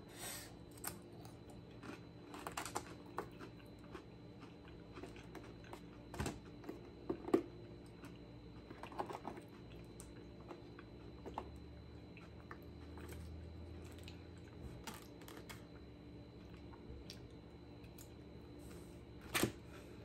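A person eating baked beans: a plastic spoon clicking and scraping against a foam cup, with quiet chewing between scattered soft taps and a sharper click near the end.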